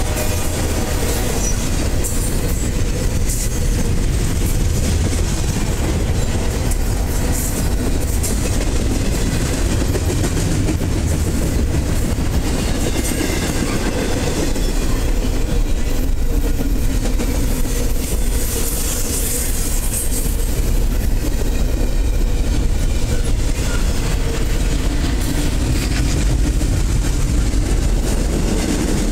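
Freight train cars rolling past at close range: double-stack container well cars and then autoracks, their steel wheels on the rails making a steady loud rumble with occasional sharp clanks.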